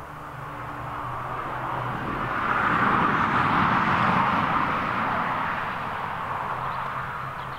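A motor vehicle passing on the road: tyre and engine noise that swells up to a peak about three to four seconds in, then fades away.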